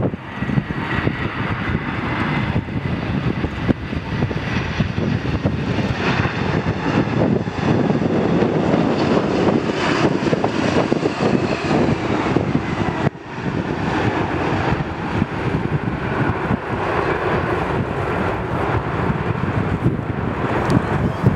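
Engines of a Boeing 747-400 freighter landing: a steady jet roar with a high whine that slowly falls in pitch. The sound breaks off briefly about two-thirds of the way through, then the roar goes on.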